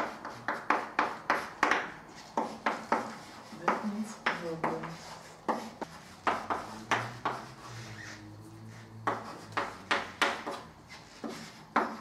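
Chalk writing on a blackboard: quick taps and short scrapes as each letter is stroked out, several a second, thinning out to a lull in the middle before picking up again.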